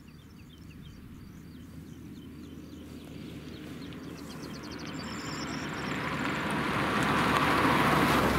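A car approaching along an asphalt road, its engine and tyre noise growing steadily louder until it draws level near the end.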